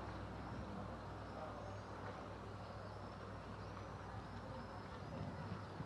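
Low, steady hum of a distant boat engine on the canal, fading away near the end, with faint high bird chirps over the outdoor ambience.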